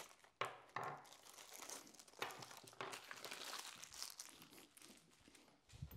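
Quiet rustling and crinkling of plastic packaging being handled, with a few small clicks and knocks scattered through, as someone rummages for a screwdriver.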